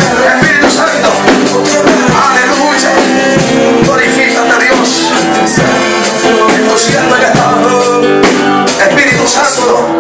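Loud worship music with a drum kit keeping a steady beat under sustained pitched instrument lines.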